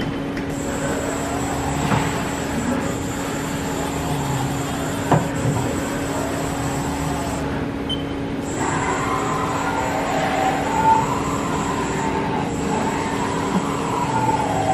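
Haas Super Mini Mill 2 CNC mill's axis drives moving the table, the servo whine rising and falling in pitch as each move speeds up and slows down, over the machine's steady hum. A sharp click about five seconds in.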